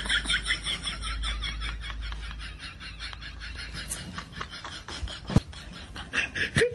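Rhythmic snickering laughter, a quick string of short 'heh-heh' pulses, quieter in the middle and louder again near the end. A sharp click comes about five seconds in.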